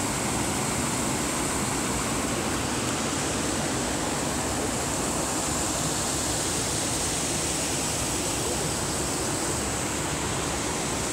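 Shallow river rushing steadily over rocks, a constant even hiss of moving water.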